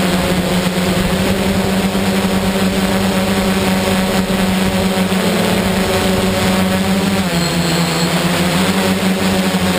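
Motor and propellers of the Darley Stinger FPV aircraft running with a steady hum, picked up by the camera mounted on it, under a wash of wind noise. The pitch dips about seven seconds in, then climbs back near the end.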